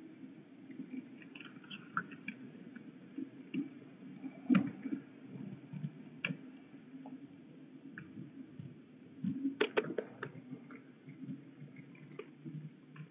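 Young peregrine falcons scrambling and flapping on a wet wooden nest ledge: irregular knocks, scrapes and clicks of talons and wings on the boards, with a quick run of sharp clicks about ten seconds in.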